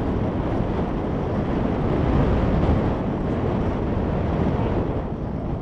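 Wind buffeting the camera microphone as the tandem pair glide under the open parachute: a steady, loud rushing that eases slightly near the end.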